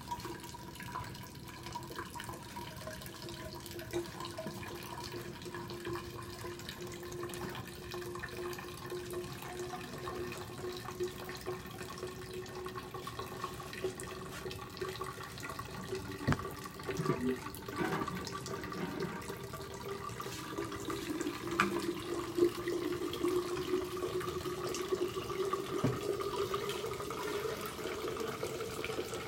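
Water running steadily from a hose into a clear plastic meandering river flow model at a constant low flow of 1.65 litres per minute. A faint steady tone runs underneath and drifts up in pitch near the end, with a few small clicks.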